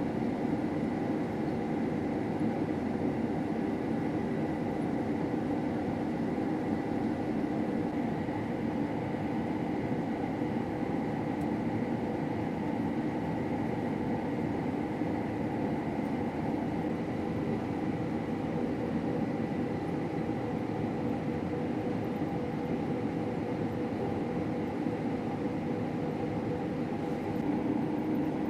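Combine harvester running steadily under load while harvesting wheat at a slow crawl: an even mechanical drone with a faint steady high whine.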